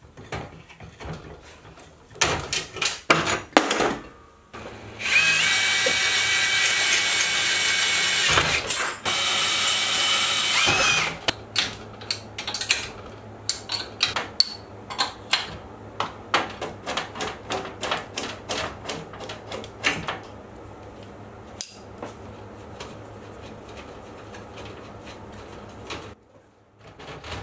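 A few sharp clicks and knocks from hand tools, then a power drill running in two bursts of a few seconds each. Then a ratchet wrench clicks in a long, steady series as it turns a homemade rivnut tool to set a rivnut in a metal pegboard.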